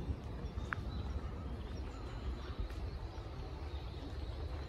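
Outdoor park ambience: a steady low rumble under a soft even hiss, with a single short, high bird chirp about three-quarters of a second in.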